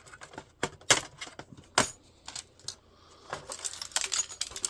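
Sharp clicks and clinks of a laptop being taken apart by hand, its plastic casing and small metal parts knocking. A few separate clicks, the loudest about a second in, then a quick run of them near the end.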